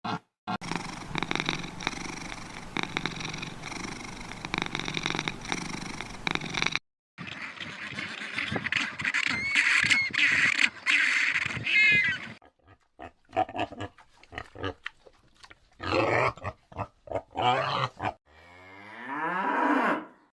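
Several short recordings of animal calls played one after another, with abrupt cuts between them; the last is one long pitched call.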